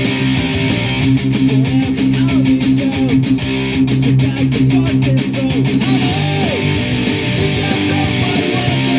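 Electric guitar played through a Roland Micro Cube amp and Boss ME-25 multi-effects unit, strumming chords in a fast, even rhythm of a punk-rock song.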